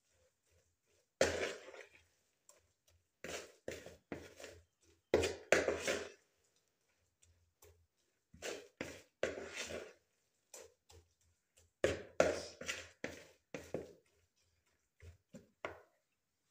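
Spoon stirring and scraping a thick grated-potato, onion and egg batter in a plastic mixing bowl, in irregular strokes of up to a second with short pauses between.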